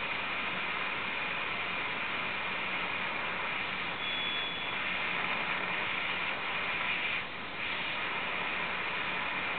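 Dancom R203 ship's communications receiver giving steady static hiss from its speaker as it is tuned across the band on a long-wire antenna. A brief high whistle comes about four seconds in, and the hiss drops for a moment past the middle.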